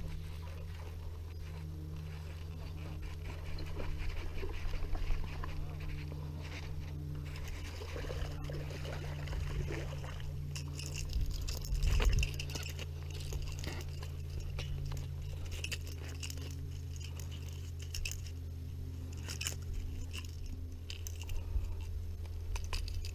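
A small fish being handled on a gravel bank: scattered rustling, gravel crunching and the clinking of a metal fish lip-grip tool, with a louder knock about twelve seconds in. A steady low hum lies under it all.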